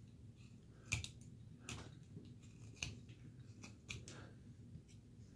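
Carving knife slicing small cuts into basswood: about six faint, sharp snicks spread over a few seconds, the first about a second in the loudest.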